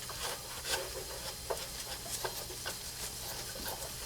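Quiet rubbing and scratchy rustling with a few small clicks, from hands wiping excess pipe dope off a freshly sealed water-heater pipe fitting.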